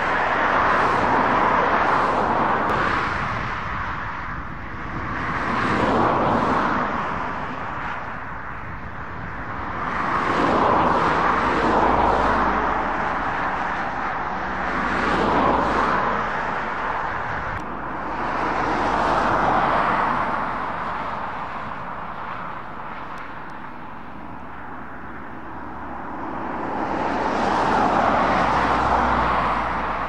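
Motor vehicle noise that swells and fades every four or five seconds, with a low engine hum underneath in the second half.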